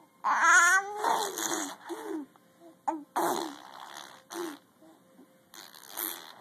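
A person making fart noises with the mouth: a short wavering vocal sound near the start, then a string of short spluttering, breathy blows with brief pauses between them.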